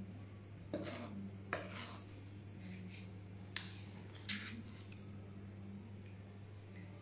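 A metal spoon clinking and scraping against the mixing bowl and the metal muffin tin as cake batter is spooned into paper cases. There are about six short clinks and scrapes in the first four and a half seconds, over a steady low hum.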